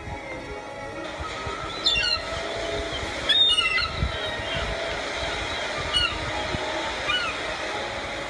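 Gulls calling: a few short cries with falling, bent pitch, the loudest cluster about three and a half seconds in, over a steady background hiss.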